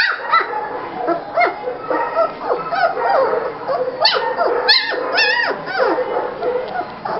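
Three-week-old German Shepherd puppies whimpering and yipping: many short, high squeals, some sliding up and down in pitch, overlapping one another.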